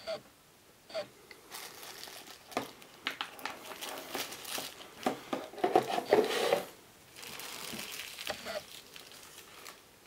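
Paper and plastic wrapping crinkling as it is unwrapped by hand, loudest a little past the middle, after a couple of small clicks at the start.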